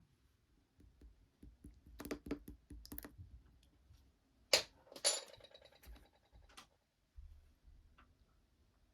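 Slime being handled: scattered small clicks and pops, a quick run of them about two to three seconds in, then two louder popping squelches about four and a half and five seconds in, the second followed by a short crackle.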